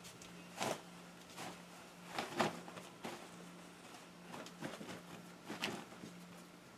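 Soft rustling of a damp, dye-batched T-shirt being unscrunched and shaken open by hand, in several short bursts, over a faint steady hum.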